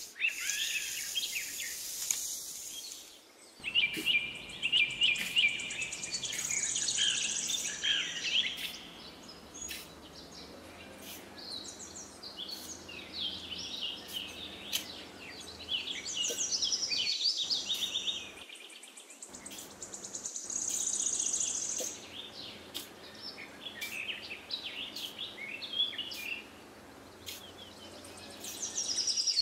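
Birds chirping and twittering in repeated short phrases, with insects chirping behind them: a rural outdoor ambience.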